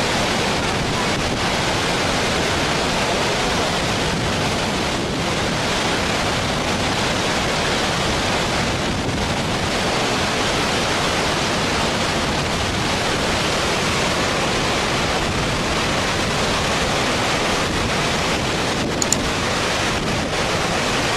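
Muddy floodwater rushing over a weir's spillway and through the swollen river, a steady, loud noise of churning water. A brief click sounds near the end.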